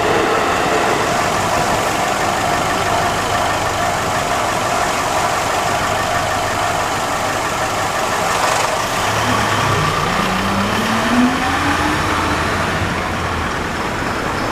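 Road vehicle engines idling, then one vehicle pulling away, its engine note rising for a few seconds about nine seconds in.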